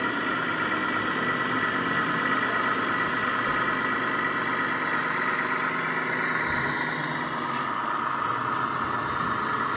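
Radio-controlled model construction machines running, with a steady motor whine that shifts a little in pitch about seven seconds in.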